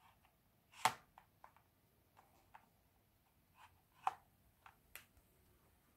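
A few light, scattered handling taps and clicks: the loudest is about a second in and another comes just after four seconds, with fainter ticks between them.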